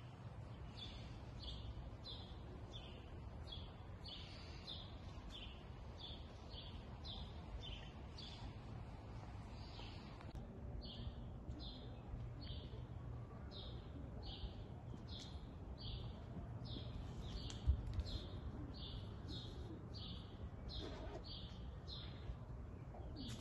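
A small songbird chirping over and over, short bright chirps at about two a second, over a low steady outdoor rumble. A single brief bump stands out about three quarters of the way through.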